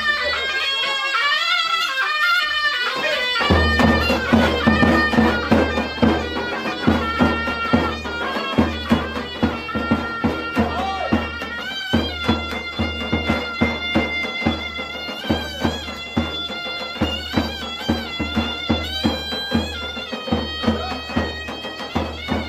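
Zurna, a double-reed folk pipe, playing a traditional Assyrian dance tune. About three and a half seconds in, a large double-headed davul drum joins it, beaten in a steady dance rhythm.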